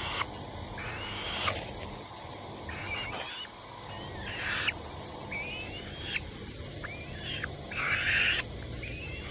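Alap-alap falcon giving harsh, repeated screeching calls, about one a second, each a short rising squeal breaking into a raspy screech.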